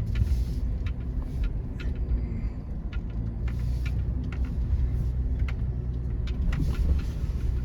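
Toyota 4Runner engine running low and steady, heard from inside the cabin as it crawls a sharp turn and incline on a rough off-road trail, with scattered clicks and knocks throughout.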